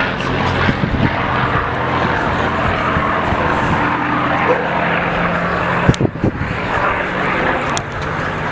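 Aircraft engine running steadily. A few sharp knocks come about six seconds in.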